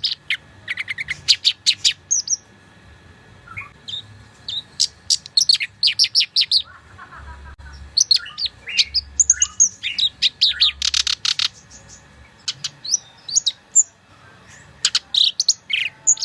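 Black-browed reed warbler singing a fast, varied song: quick chirps, rapid trills and rattling runs with short pauses between phrases.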